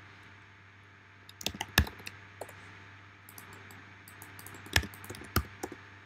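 Computer keyboard typing: scattered key clicks in two short bursts, about a second and a half in and again from about three and a half to five and a half seconds, over a faint steady low hum.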